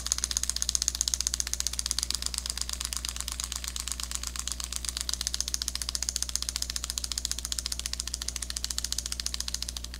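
The 22 Five mechanical frog lure's stainless-steel spring mechanism ticking rapidly and evenly as it reels its line back into the nose and kicks the legs, like a wind-up toy. It stops near the end.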